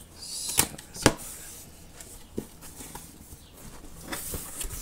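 Cardboard box being opened by hand: cardboard sliding, two sharp knocks about half a second apart near the start, then a paper insert rustling as it is lifted out near the end.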